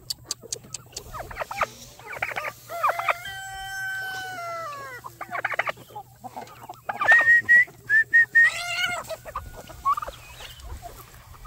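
Roosters crowing with hens clucking: short clucks early on give way to one long crow, held and then falling at its end, about three seconds in, and a louder run of calls about seven to nine seconds in.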